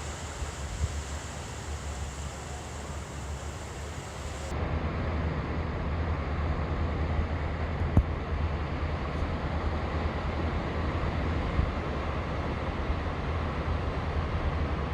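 Sea surf washing on a sandy beach, with wind rumbling on the microphone. About four and a half seconds in the sound jumps abruptly and gets louder.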